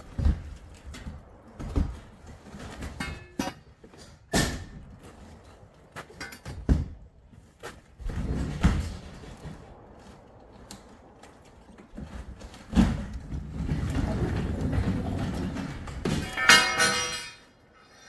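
Tool knocks against a sectional garage door. Then, once the manual release is pulled through a cut in the top panel, the door rumbles up along its tracks, with a short metallic squeal near the end.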